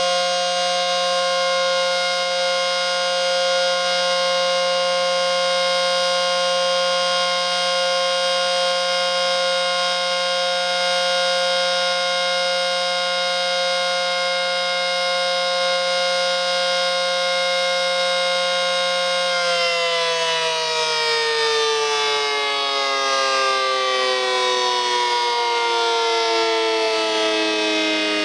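ACA Screamer S-10 outdoor warning siren sounding a steady tone during its monthly test, then, about two-thirds of the way through, winding down with its pitch sliding slowly lower as it coasts to a stop.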